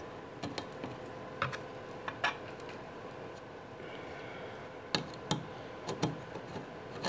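Light, irregular clicks and taps of a screwdriver and wire working the small screw terminals of a car-audio crossover, as stripped speaker wire is pushed in and the terminal screw is tightened. About nine sharp clicks, bunched near the start and again in the last third, over a faint steady hum.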